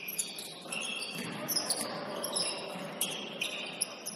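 A basketball game in play: the ball bouncing on the court, with repeated short, high squeaks of sneakers on the floor and scattered knocks.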